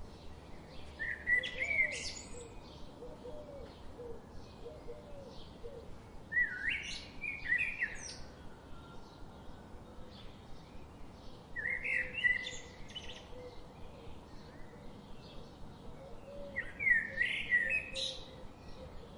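Budgerigars chirping: four louder bursts of chirps and warbles about five seconds apart, over a steady background of faint, quick tweets.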